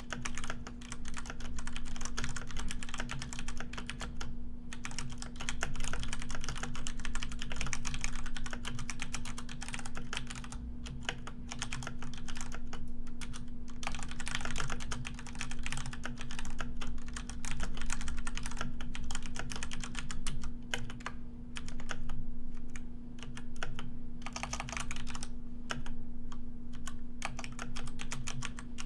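Computer keyboard typing: rapid key clicks in runs of several seconds with brief pauses between them, over a faint steady low hum.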